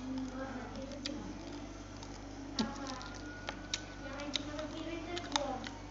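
Red rice being chewed, with scattered small clicks and smacks, roughly one a second.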